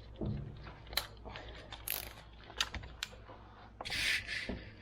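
Hand tools such as sockets and nut drivers being handled, giving a handful of separate light metal clicks and clinks, with a short rattle about four seconds in.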